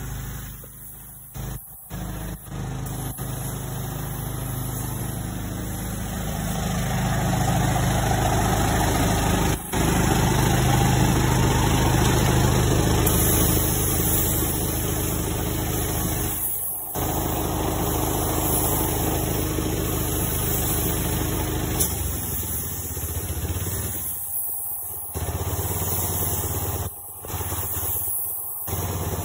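A small engine running steadily, with a steady hiss over it; the sound cuts out briefly several times.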